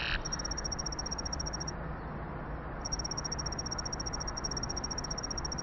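Electronic intro sound effect: a rapid, high-pitched pulsing trill over a low steady hiss. The trill drops out for about a second in the middle, then resumes.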